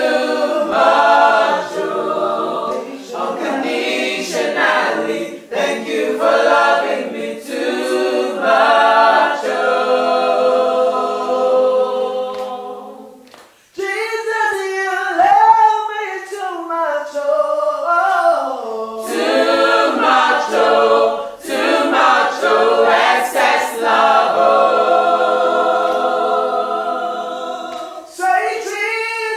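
A small mixed group of men's and women's voices singing worship a cappella, in harmony, with no instruments. About halfway through the singing fades out, then a lone lead voice sings a line that slides up and down for a few seconds before the group comes back in.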